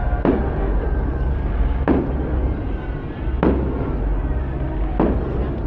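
Fireworks shells bursting: four sharp bangs about a second and a half apart, each trailing off in a short echo, over a steady low rumble.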